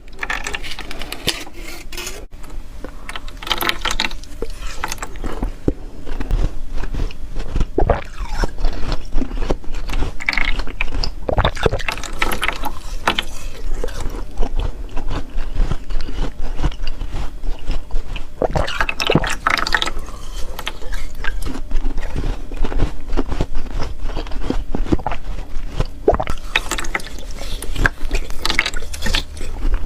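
Close-miked crunching and chewing of ice: dense crackling, with louder crunches every second or two.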